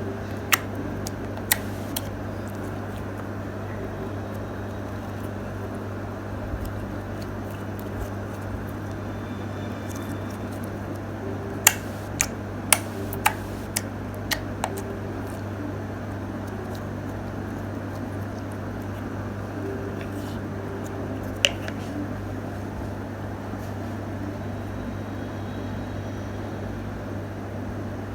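Slime being handled and squeezed, giving sharp pops and clicks: a few early on, a quick run of about six half a second apart midway, and one later. A steady low hum runs underneath.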